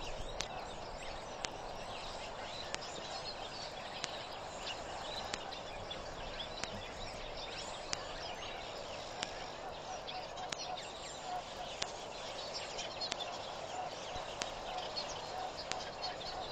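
Open bush ambience of many birds chirping and calling over a steady outdoor hiss, with a faint tick about every second and a quarter.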